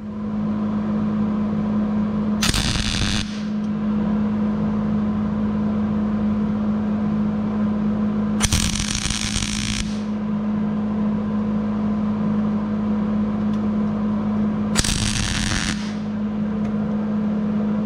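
MIG welder running a bead on a steel bracket: the steady crackling buzz of the arc over a low hum, with three brief louder spells of hiss.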